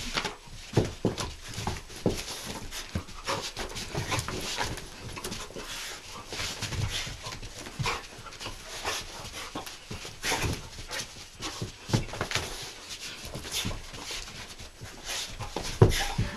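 Entlebucher Mountain Dog panting during rough play with a person, with irregular scuffs and knocks of paws and bodies on a hard floor.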